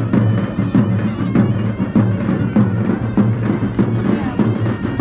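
Tunisian traditional music: a reedy wind instrument plays over a steady beat of hand drums.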